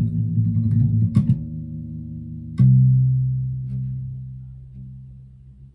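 Electric bass guitar: a fast run of repeated plucked low notes, then a single low note struck about two and a half seconds in and left to ring and fade away.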